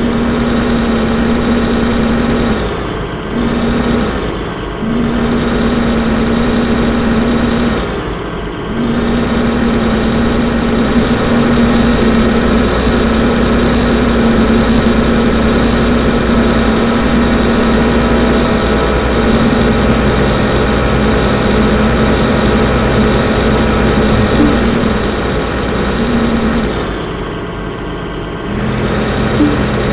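Excavator engine running steadily with a strong droning hum, dipping briefly four times: twice close together a few seconds in, once more a little later, and once near the end.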